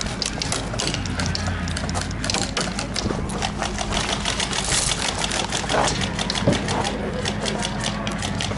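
Airsoft electric guns firing in rapid full-auto bursts, a fast clatter of clicks many times a second.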